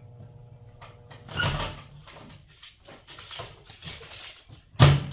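A microwave oven running with a low, steady hum that stops about a second in. A clunk follows, then scattered rustling and a loud sharp knock near the end.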